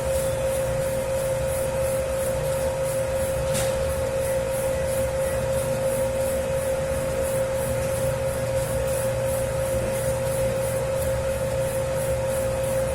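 Electric dough-kneading machine working a 10 kg batch of pizza dough: a steady motor hum with a low rumble and a soft swish that repeats about three times a second.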